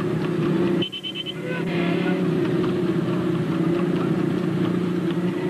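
Motorcycle engines running steadily around a galloping horse-drawn racing cart, a constant engine drone. The sound drops out briefly about a second in.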